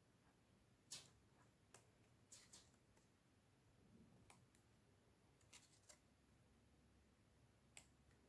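Near silence with a scattering of faint, short clicks and light paper handling as the pages of a glossy photo book are turned.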